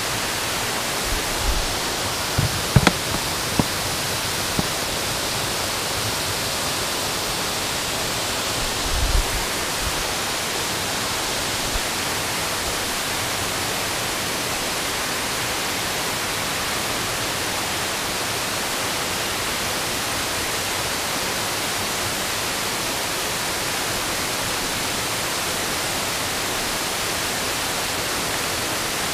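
Steady rushing of creek water, an even hiss with no let-up. A few low thumps sound in the first few seconds and again about nine seconds in.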